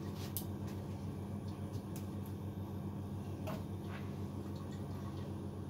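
A few light clicks and knocks of household items being handled and set down, over a steady low hum.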